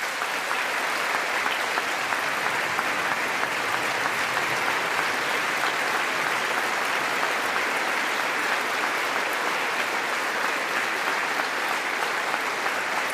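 A large audience clapping in a sustained standing ovation, swelling up at the start and then holding steady.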